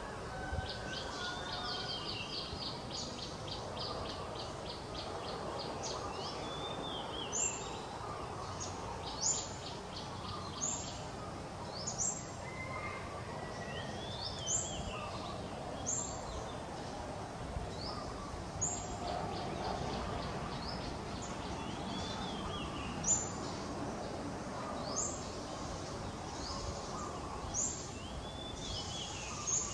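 Birds calling over steady outdoor background noise: short, high, rising chirps repeated every second or two, a fast trill in the first few seconds, and a lower arched call every several seconds.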